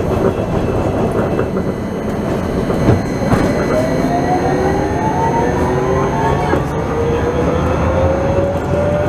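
Rumble of an AnsaldoBreda Sirio tram. After a click about three seconds in, its electric traction motors whine as it accelerates: several tones rise slowly in pitch over the rolling rumble of the wheels, heard from inside the car.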